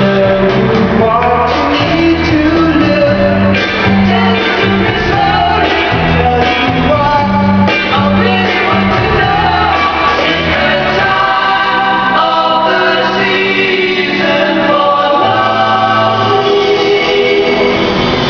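Loud music with singing over a steady bass line, the soundtrack of an overhead LED canopy light show played through its street sound system.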